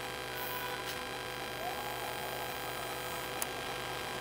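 Steady electrical hum over a faint hiss, with a few faint clicks.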